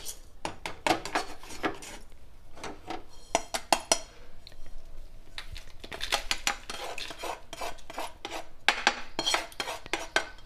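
Spatula stirring and scraping dry-roasted salt in a nonstick kadai, then scraping it out onto a steel plate: irregular clusters of sharp clicks, taps and scrapes.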